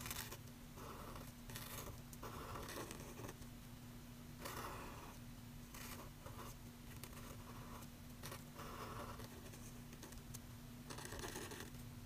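Felt-tip marker drawing on thick watercolour paper: about ten short, soft scratching strokes, each under a second, as a flower outline is drawn.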